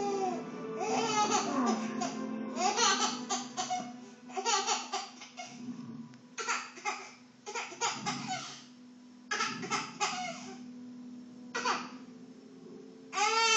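Baby laughing in repeated bouts of giggles a second or two apart, with soft music in the background.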